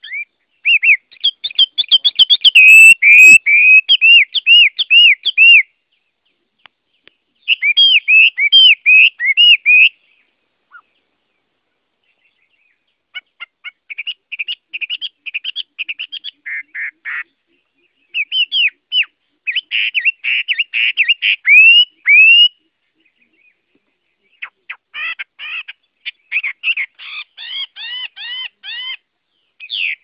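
Chinese hwamei (Garrulax canorus) singing: loud phrases of rapid, repeated whistled notes, five bursts of a few seconds each with short pauses between them.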